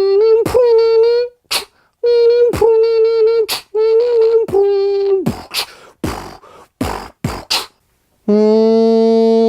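Beatboxing: a hummed tune of held notes alternating between two pitches, punctuated by sharp mouth-made drum hits, then a run of drum hits alone. After a brief silence near the end, a steady buzzy tone begins.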